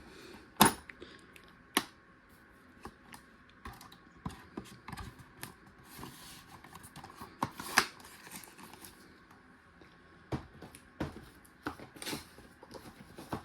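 Scattered, irregular clicks and light knocks from a 3/8-inch flex-head hand ratchet being handled, with a sharp click just under a second in and a louder cluster of clicks near eight seconds.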